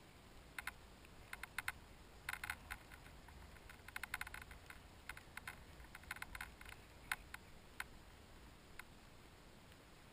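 Faint, irregular sharp clicks and ticks, some single and some in quick clusters, over a low steady background hush.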